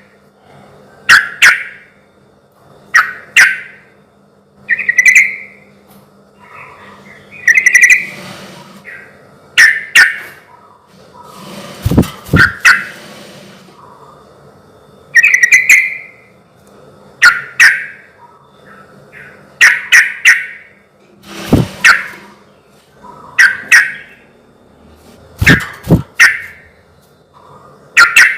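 Yellow-vented bulbul (trucukan) singing: short, bubbly phrases about every two seconds.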